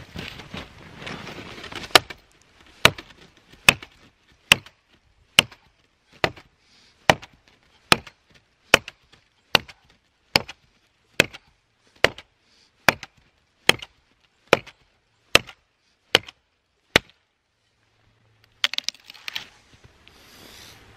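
An axe chopping into a dead, snow-covered branch, about nineteen steady strokes a little under a second apart, which stop a few seconds before the end. A short rustle of snow and wood follows.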